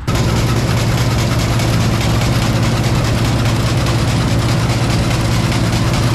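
John Deere 4400 diesel combine running steadily under load, its engine hum beneath a loud, even rush from the threshing and separating machinery as it takes in barley.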